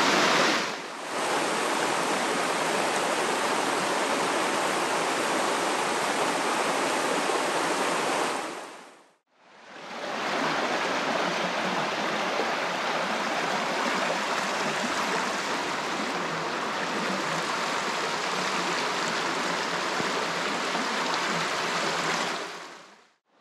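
Hillsborough River rapids: water rushing steadily over rocks. It fades out about nine seconds in, comes back a second later, and fades out again near the end.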